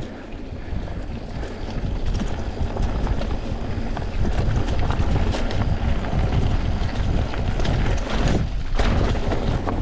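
Wind buffeting the microphone of a camera on a moving mountain bike, over the rumble of tyres on a dirt trail and the bike's rattles and clicks. It grows louder after about two seconds as the bike picks up speed.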